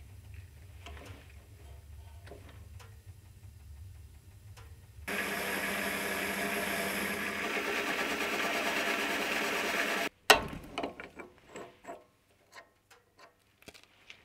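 Mini lathe boring inside a metal part: a steady hiss of the cutting tool for about five seconds, starting and stopping abruptly. A sharp metallic clack follows, then light clicks of metal parts being handled at the lathe's collet chuck.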